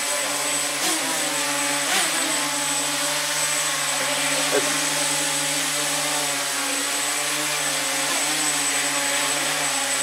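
Homemade RC tricopter in a carbon-fibre sphere cage hovering, its motors and propellers giving a steady hum that holds one pitch with only slight wavers.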